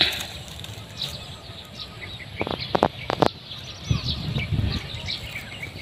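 Small birds chirping here and there over outdoor background noise, with a few sharp clicks or knocks about two and a half to three seconds in.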